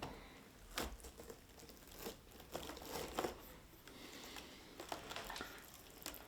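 Faint crackling and tearing of the foam adhesive strip as the glass display of a 27-inch iMac is freed from its aluminium case, with scattered small clicks.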